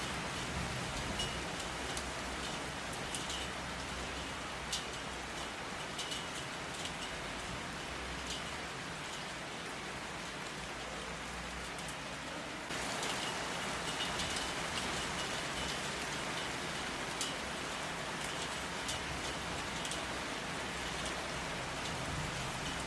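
Steady rain falling, with the sharp drips of single drops scattered through it. The rain turns suddenly louder a little past halfway and stays that way.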